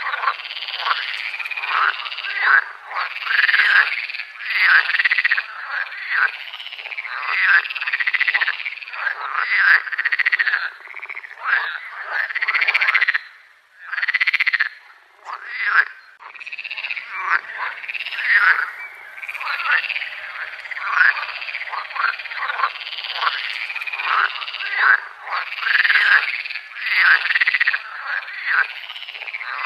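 A chorus of frogs croaking, with many calls overlapping almost without pause. There is a brief lull about fourteen seconds in, and another a couple of seconds later.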